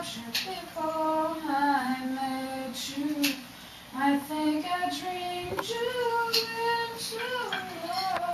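A woman singing on her own along to an MP3 player only she can hear: unaccompanied, in long, wavering held notes, phrase after phrase with short breaks between.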